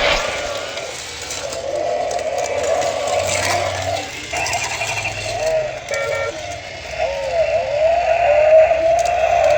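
Toy race track play set running, with its small cars rattling on the plastic track and a whirring tone that wavers and then rises steadily in pitch in the second half.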